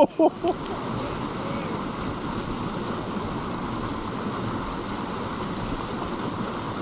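Steady rush of a small mountain creek pouring over a rocky cascade, an even hiss of running water.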